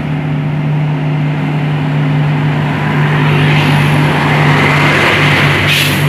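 Intercity bus's diesel engine running loud and steady at close range, with a short sharp hiss near the end.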